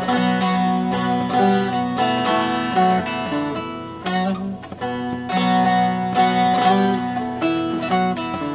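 Short-neck bağlama (Turkish saz) with a walnut bowl being strummed: a quick plucked melody over steady low ringing notes, with a brief softer moment about four seconds in.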